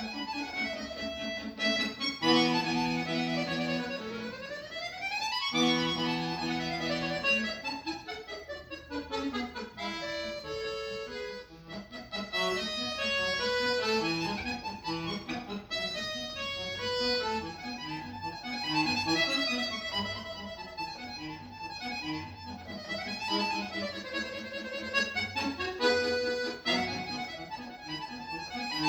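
Accordion playing a lively piece: held chords, then a fast rising run about four seconds in, followed by quick running passages.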